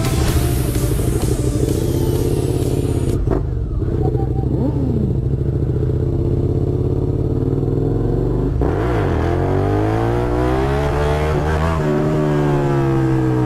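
Motorcycle engine heard from the rider's seat: running at low, fairly steady revs for the first several seconds. About two-thirds of the way in it accelerates hard, pitch climbing, dips at a gear change and climbs again.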